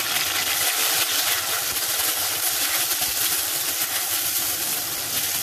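Freshly added chopped tomatoes and green chillies sizzling steadily in hot oil in a pan, stirred with a plastic spatula.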